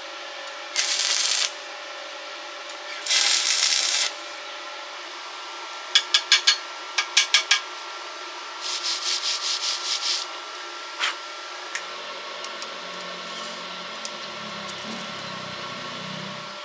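Rasping, scraping strokes over a steady hum: two longer strokes, then two quick sets of four, then a fast run of about ten, ending in a few scattered clicks.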